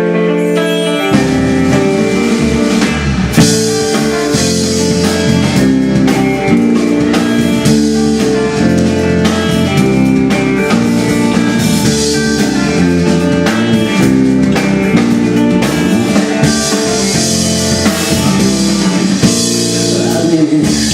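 Instrumental introduction of a band song: guitar first, with drums and bass joining about a second in and playing on steadily.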